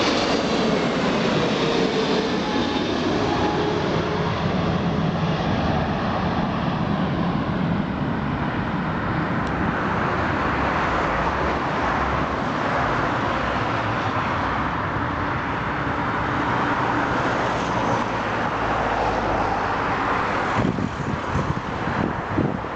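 Boeing 777 airliner's twin jet engines heard as a loud, steady rush of jet noise, with a whine that falls in pitch over the first few seconds. Wind buffets the microphone near the end.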